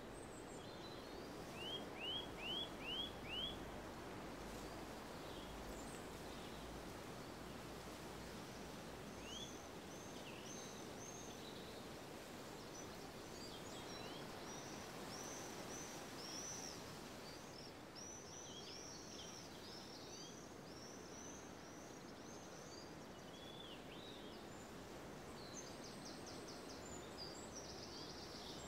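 Birds singing and calling over a steady, even background hum. A quick run of five loud sliding notes comes about two seconds in, then many short high chirps through the middle, and a fast run of notes near the end.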